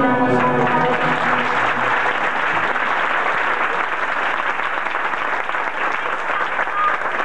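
Audience applauding, starting over the last notes of the song, which die away within the first couple of seconds.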